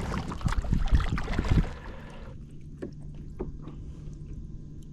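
Water splashing and sloshing against a kayak, with sharp knocks on the hull, for the first couple of seconds. Then it settles to a low steady hum with a few light clicks.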